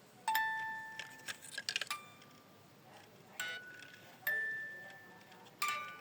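Light clinks of small hard objects knocking together, each leaving a short ringing tone. About five clinks at uneven intervals, with a quick flurry of them in the first two seconds.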